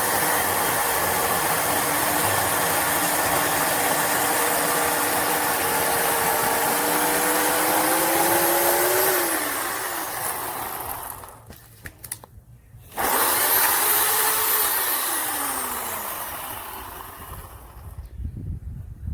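WEN 15-amp corded electric chainsaw motor running at speed with a steady whine. About nine seconds in, the pitch climbs briefly, then winds down as the trigger is released. After a short gap it is triggered again and coasts down once more, followed by a few low thumps near the end.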